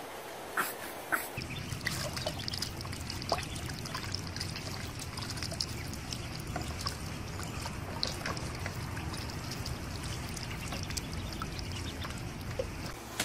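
Water trickling and lapping with small splashes as a group of ducklings paddles in a shallow plastic paddling pool, over a steady low rumble. Two sharp knocks come in the first second.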